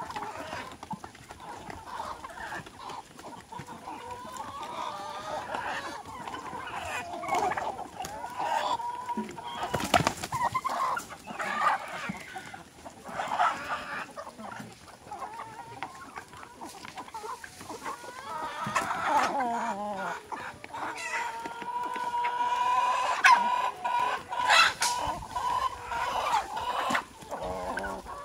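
Flock of chickens clucking while they feed, with several longer held calls, the longest lasting a few seconds in the second half, and one sharp knock about a third of the way through.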